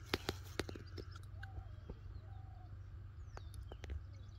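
Faint bird calls, with a falling whistle about three seconds in, over sharp clicks near the start and a low steady rumble.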